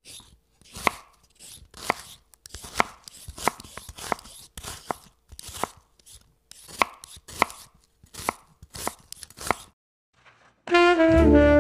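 A knife chopping on a cutting board: about a dozen sharp chops at an uneven pace of roughly one to two a second. Near the end the chopping stops and jazzy saxophone music starts loudly.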